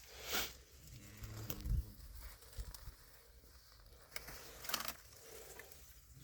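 A cow lowing briefly, a short low moo about a second in, with scattered knocks and rustles around it.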